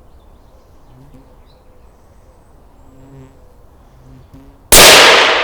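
A single rifle shot about three-quarters of the way through, very loud and sudden, with a long echoing decay that rolls on afterwards. Before it, a faint insect buzz comes and goes.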